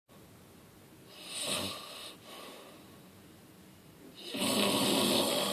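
A person snoring: one snore about a second in, then a longer, louder snore from about four seconds in.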